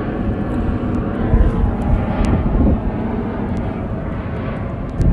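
Fixed-wing airplane flying overhead: a steady engine drone.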